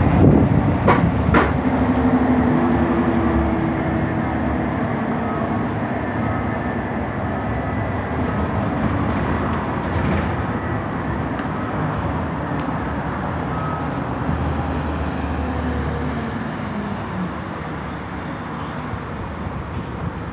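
City bus in motion, heard from inside: a steady rumble of engine and road noise, with a couple of sharp knocks or rattles in the first second and a half and a faint hum a few seconds in.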